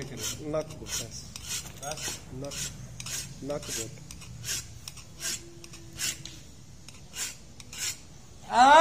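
Hand file scraping along a curved sickle blade in short, even strokes, about two a second. Near the end a man lets out a sudden loud cry.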